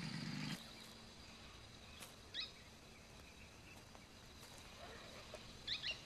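Trail motorbike engine running low, switched off about half a second in. Then faint bush ambience: a steady high insect drone and two short chirping calls, one about two seconds in and one near the end.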